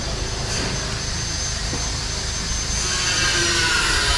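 A steady mechanical drone with a high whine, growing louder near the end.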